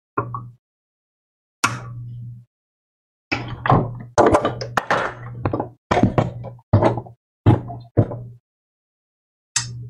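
A series of about a dozen sharp, irregular clicks and knocks from hand tools and a circuit board being handled on a workbench as a soldered-in coin-cell battery is cut free.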